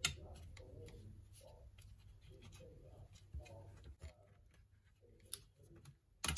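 Faint scratchy clicks and ticks of a small precision screwdriver turning out the screws that hold the metal shield over a laptop's motherboard, with a louder click at the start and another near the end.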